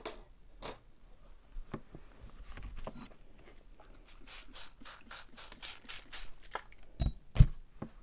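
Trigger spray bottle squirting vinegar onto leaves and petals laid on paper: a quick run of about ten short hissing sprays, roughly five a second, about halfway through. Near the end come two low thumps.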